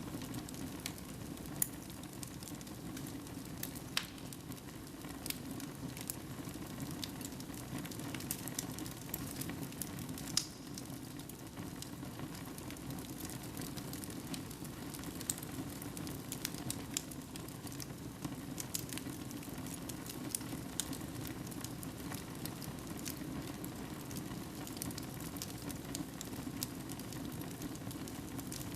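Fire burning in a fireplace: a steady low rush of flame with many irregular sharp crackles and pops.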